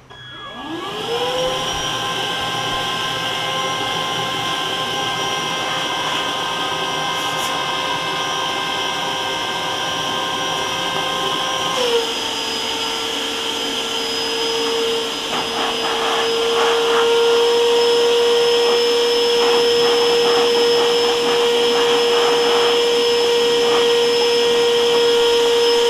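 ETENWOLF Vortex S6 portable air compressor running in its high-volume inflate/deflate air mode. Its fan motor spins up over the first second or so, then runs with a steady whine. About twelve seconds in the pitch steps down slightly, and a few seconds later it gets louder. The man calls the airflow really strong.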